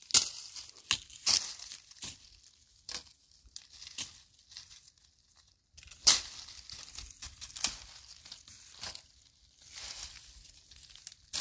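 Dry fallen leaves crunching and rustling underfoot and under hand in short, irregular bursts, with a brief lull about halfway through.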